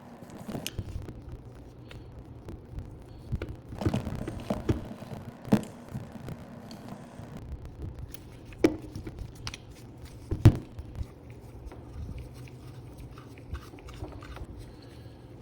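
Scattered clicks and knocks at irregular intervals, the loudest about ten and a half seconds in, over a low steady hum.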